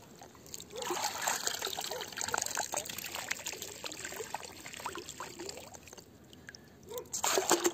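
Shallow water trickling and bubbling around a perforated metal sand-scoop sieve held in it, with many small drips and plops, and a short louder splash near the end.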